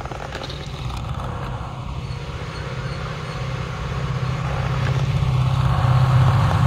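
WDG4 diesel-electric locomotive's 16-cylinder EMD two-stroke engine drumming as it approaches, growing steadily louder.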